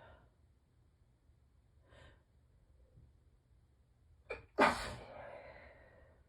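A woman's allergy sneeze into tissues pressed tightly to her face, only slightly muffled. After a breath in, a short catch comes about four seconds in, then one loud sneeze that trails off.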